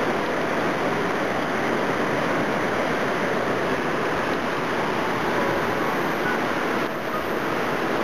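Whitewater river rapids rushing steadily, an even noise of churning water.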